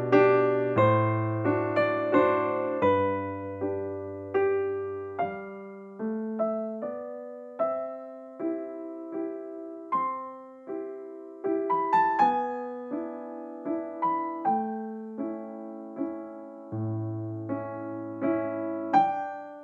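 Background piano music: a slow melody of struck notes that fade after each attack, over sustained low bass notes.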